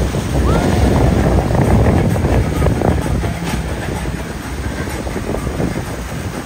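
A center-console boat's outboard motors running hard, a loud low rumble, as the hull pounds through choppy waves and throws up spray.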